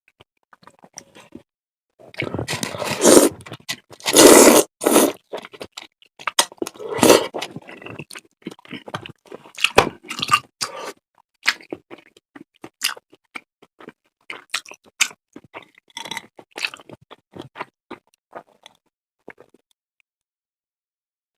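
Close-miked eating for a mukbang: a few loud, dense eating noises in the first few seconds, then chewing with scattered wet smacks and clicks that thin out near the end.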